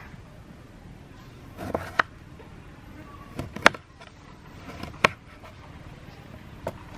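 A kitchen knife slicing limes into wedges on a wooden cutting board. Each cut is a short scrape as the blade goes through the fruit, then a sharp knock as it meets the board: four knocks about a second and a half apart, the loudest near the middle.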